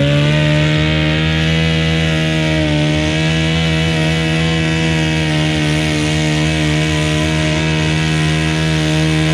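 Modified pulling garden tractor's engine run flat out at a steady high pitch, under full load as it drags the weight sled down the track.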